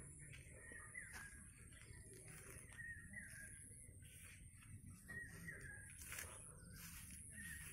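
Faint birds calling: short chirps repeated irregularly, some sliding down in pitch.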